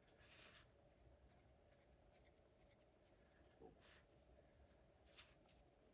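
Near silence, with faint scratching and a few light ticks of small handwork.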